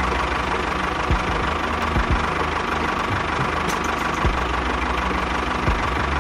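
An engine idling steadily, with a few irregular knocks.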